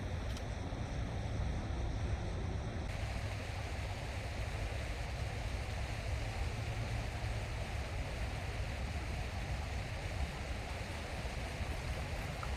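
Wind rushing over the microphone outdoors: a steady, deep, even rush with no distinct clicks or tones.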